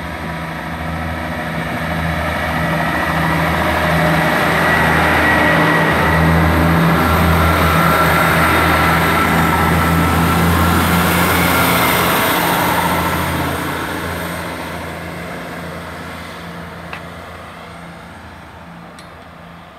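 Class 158 diesel multiple unit pulling away from the platform, its diesel engine throbbing as it accelerates. The sound builds to its loudest about halfway through, then fades steadily as the train draws away.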